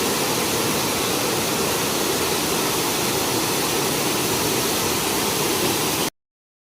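Small waterfall running full after rain: a steady, loud rush of falling water, which cuts off suddenly about six seconds in.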